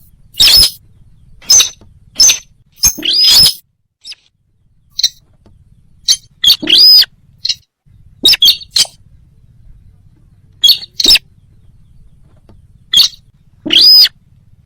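Sintar bird lure call: loud, short, sharp squeaky call notes, several arching up and down in pitch, repeating in clusters of one to three with pauses between, over a faint steady low hum.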